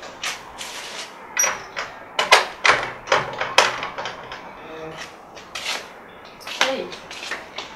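A wooden courtyard gate being shut and its metal bolt worked: a run of sharp knocks and clatters, with a brief metallic ring from a tin bucket. Footsteps follow.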